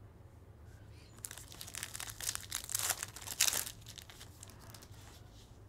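Foil wrapper of a trading-card pack crinkling and tearing as it is opened by hand, in a run of rustles and rips from about a second in until nearly four seconds in.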